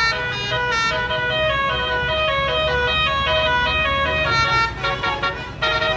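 Basuri multi-tone air horn on a tour bus playing a quick tune of stepped notes over a low engine rumble. The tune dips briefly near the end, then resumes with sharper notes.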